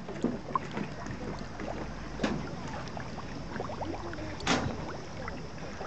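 Many carp gulping and slurping at the water surface, a scatter of small wet smacks with two louder splashes about two and four and a half seconds in, over a low steady rumble.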